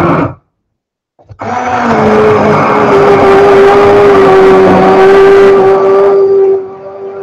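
Electric stick blender running in a saucepan of soup: a loud motor whine with churning noise. The motor cuts out for under a second near the start and then spins back up. Near the end the churning falls away and a quieter, steady whine carries on.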